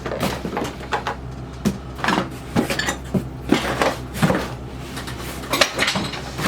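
Small sewing machine parts being handled and rummaged through in a box: irregular clinks, knocks and rattles of hard parts against each other.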